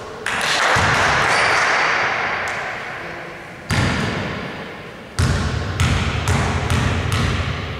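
A basketball striking the rim or backboard just after the start, ringing through the hall, then the ball bouncing on the hardwood court: one bounce, then a run of bounces about two a second as it is dribbled at the free-throw line.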